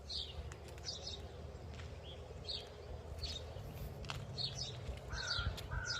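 Small birds chirping, with many short high calls repeating every half second or so and a brief lower call twice near the end, over a low steady rumble.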